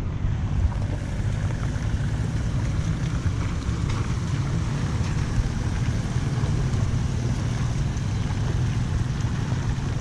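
Flood water rushing steadily into a culvert drain, a constant turbulent rush with a deep rumble underneath.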